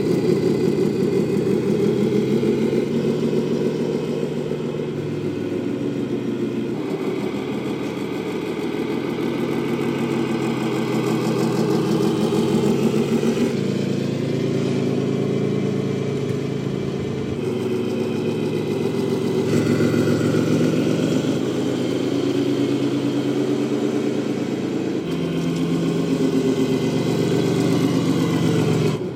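Simulated diesel truck engine from the RC Scania's onboard sound module, running as the model is driven, its pitch and loudness shifting every few seconds with the throttle.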